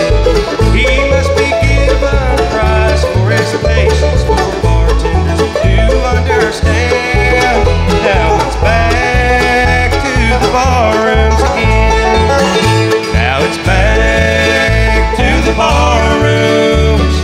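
Live bluegrass band playing an instrumental break between sung verses: picked banjo, mandolin and acoustic guitars over a bass keeping steady alternating low notes.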